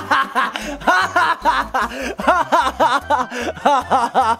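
A man laughing loudly and theatrically, a long unbroken run of rapid "ha-ha-ha" syllables, over background music with a repeating bass beat.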